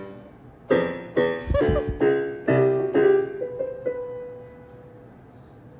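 Yamaha digital keyboard played in a piano sound: about seven single notes struck one after another, unhurried and without a tune, with a dull bump or two about one and a half seconds in. The last note, struck about three and a half seconds in, is held and slowly fades away.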